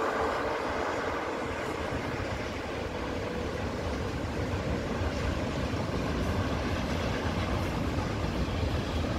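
A train running on the tracks: a steady rumble that grows deeper and stronger in the second half, with a faint whine near the start that fades away.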